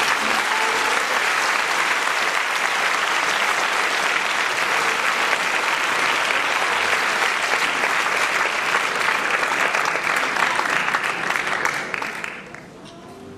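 Audience applauding, a dense steady clapping that dies away about twelve seconds in.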